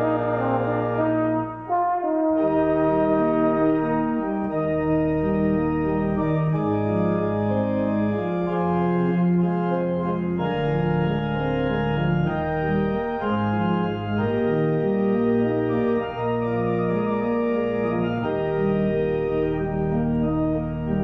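Church pipe organ playing a slow piece in held chords, with a short break in the music about two seconds in.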